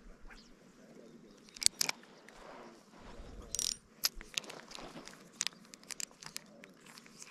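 Light, irregular clicks and crunches of a spinning rod and reel being handled and cranked during a slow retrieve, with a sharper pair of clicks about two seconds in.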